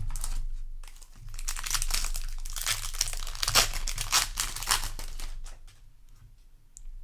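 Foil booster-pack wrapper being crinkled and torn by hand, a dense irregular crackle that eases off after about five and a half seconds.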